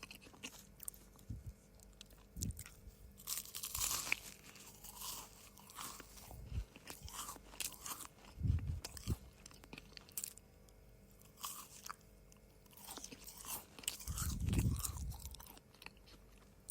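Close-up eating of dry cookies: irregular crisp crunching and chewing in spells, with a few dull low thumps of the jaw about halfway through and again near the end.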